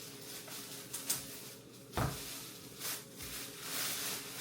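Kitchen handling noises: rustling with a sharp click about a second in and a heavier knock about two seconds in, then another knock, like things being set down and moved about on a counter.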